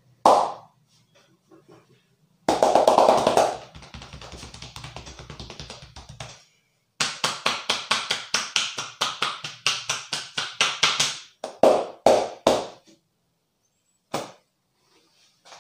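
Hand percussion massage on a man's upper back and shoulders: rapid, even slaps and chops, about five a second, then a few louder single slaps near the end.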